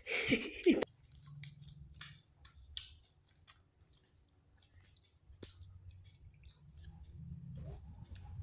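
A small child chewing and eating flatbread, with scattered soft wet smacking clicks from the mouth. A brief loud voice at the start.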